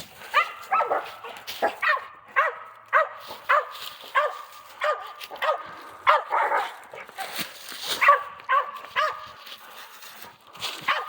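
Hunting dogs barking steadily and repeatedly, about two barks a second, at a squirrel they are chasing.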